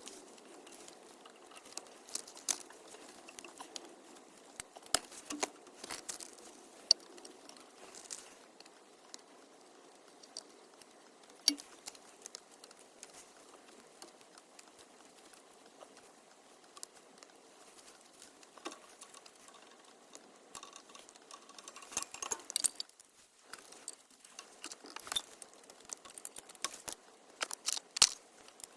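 Irregular light clicks, taps and rustles at no steady rhythm, a little denser near the end, over a faint steady hiss.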